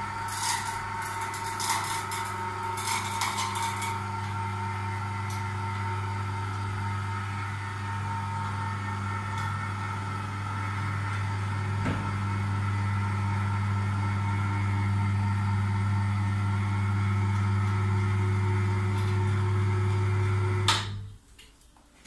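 Small electric wire-rope hoist of a home-built platform lift running steadily as it hauls the platform up, a low steady hum with a few clicks in the first few seconds. The hum cuts off suddenly about 21 seconds in as the motor stops with the platform at the top.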